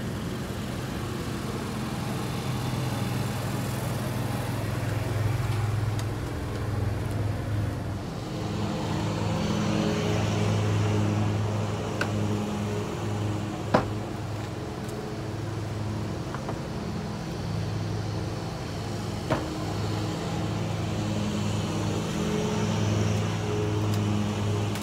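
An engine idling steadily, a low drone that swells and eases, with a few sharp clicks.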